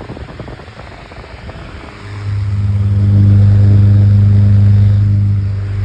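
Small electric disc table fan running with a rush of air, then about two seconds in a loud, steady motor hum swells up and holds.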